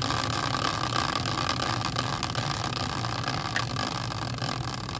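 Hand-spun caster wheel coasting on its axle: a steady whirring rumble that slowly fades as the wheel winds down.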